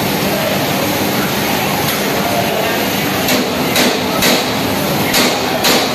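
Steady loud din of industrial laundry machinery running: large washer-extractors and a centrifugal spin extractor. In the second half come about five sharp knocks.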